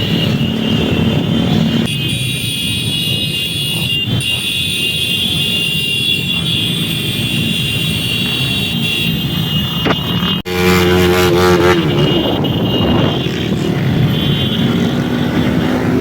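Motorcycle engines running loudly and steadily, with an abrupt change in the sound about ten and a half seconds in.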